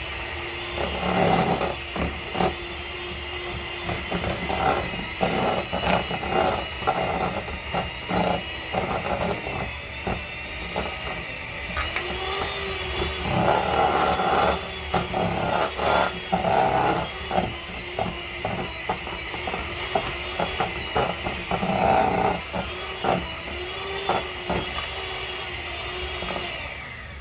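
Corded electric hand mixer running with a steady high whine, its beaters churning thick, sticky peanut butter cookie dough and knocking and scraping against a stainless steel bowl in irregular clatters. The motor cuts off near the end.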